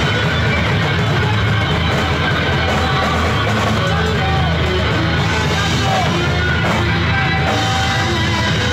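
Loud live rock band playing, heavy and distorted, with electric guitar over a steady low end of bass and drums.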